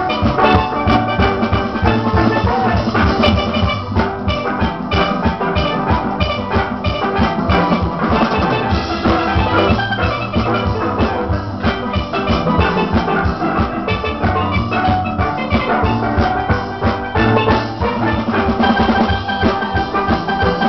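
Steel orchestra playing: a full band of steelpans with drum kit, many pans striking quick melodic notes over a steady driving beat.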